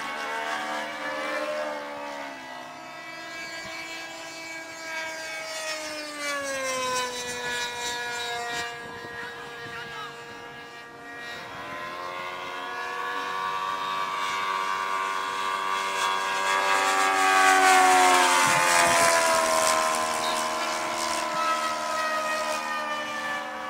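Radio-control scale Hellcat model airplane's engine and propeller buzzing in flight. Its pitch drops as it flies away, then it comes back and grows loudest about three-quarters of the way through, its pitch falling again as it makes a low pass.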